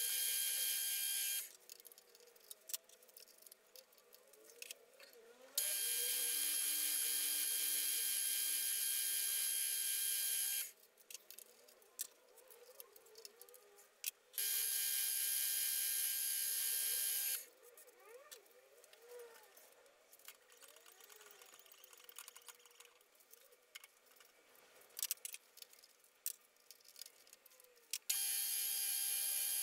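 Benchtop mill-drill drilling holes in a metal base plate: the machine's motor gives a steady high-pitched whine in four stretches of a few seconds each, starting and stopping abruptly, with quieter stretches of faint clicks between them.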